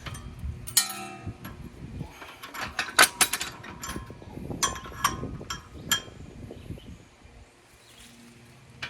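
Metal clanks and clinks from steel tractor implement parts and pins being handled. There are several sharp knocks; the one about a second in rings on briefly, and another loud clank comes about three seconds in.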